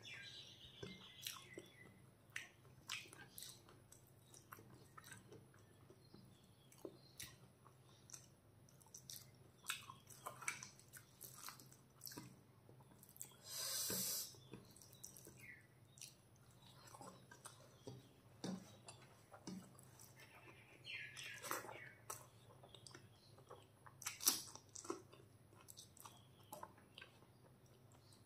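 Close-up eating sounds: soft, wet chewing and lip smacks as a mouthful of chicken pulao and curry is eaten by hand, with scattered small clicks throughout. About halfway through comes one louder, short noisy burst.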